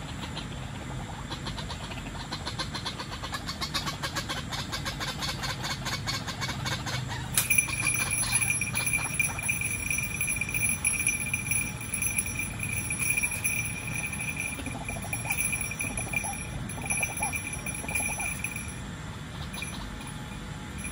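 Outdoor wildlife sounds in a flooded thicket: a fast ticking trill for the first several seconds, then a steady high-pitched buzz that starts suddenly about seven seconds in and stops shortly before the end.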